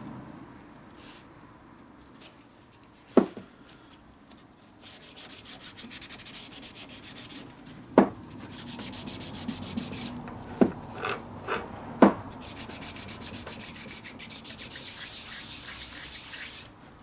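Metal being scrubbed by hand with an abrasive in quick back-and-forth strokes, in several stretches, as rust is cleaned off. A few sharp knocks, like parts or tools being set down, fall between the stretches.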